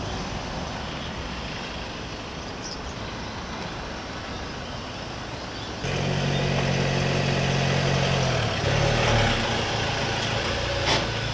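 Steady street background for the first few seconds, then from about six seconds a Ford Ranger ute's engine running close by as it reverses into the carport, its note shifting around nine seconds, with a sharp click near the end.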